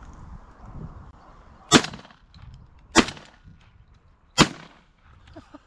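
Semi-automatic shotgun fired three times in quick succession, shots about a second and a half apart.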